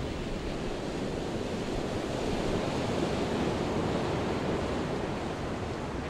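Ocean waves surging and washing, a steady rushing noise that swells a little in the middle and then eases.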